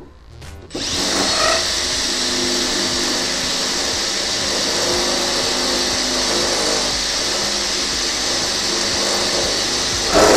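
Makita cordless drill starts about a second in and runs steadily, drilling a pilot hole through a van door's sheet-metal panel. There is a short louder burst near the end.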